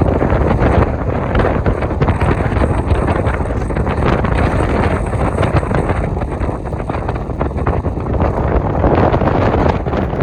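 Extreme wind buffeting the microphone: a loud, continuous low rumble with constant crackling.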